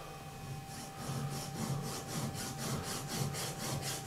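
A hand file rasping on metal at the lathe, in a quick even rhythm of about five strokes a second that starts just under a second in.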